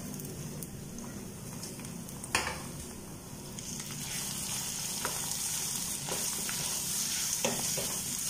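Ginger, garlic and green chillies sizzling in hot oil with fried onions in a wok, stirred with a wooden spatula. There is a single knock about two and a half seconds in, and the sizzle grows brighter once the stirring starts, with a few light taps and scrapes.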